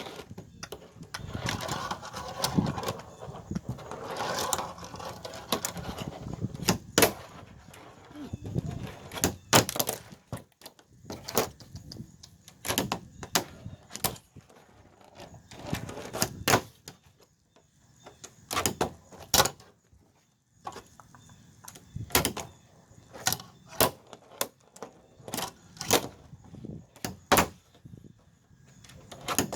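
Tech Deck fingerboard clacking on a plastic trash can lid as tricks are tried: a long irregular run of sharp clicks and snaps, roughly one a second. A muffled rustling noise runs under the first few seconds.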